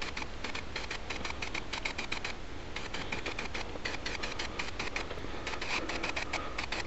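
Aerosol spray-paint can in use: rapid, irregular clicking and hissing, with a short pause about two and a half seconds in.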